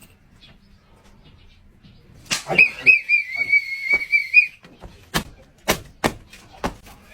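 A whistle blown once for about two seconds, a high steady tone that wavers slightly as it starts. It is followed by four sharp impacts within about a second and a half.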